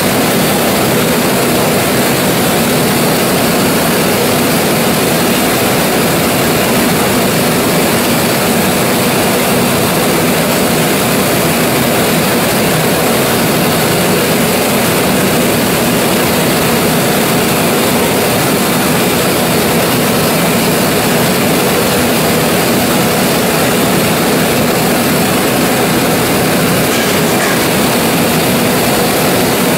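1925 Gardner 4T5 four-cylinder oil engine running steadily and loudly.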